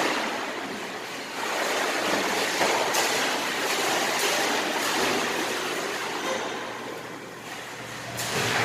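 Pool water splashing and churning as a child swims, kicking and stroking at the surface, with swells that rise and fall.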